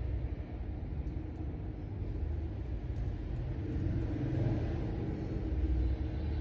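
Steady low background rumble, with a few faint light taps.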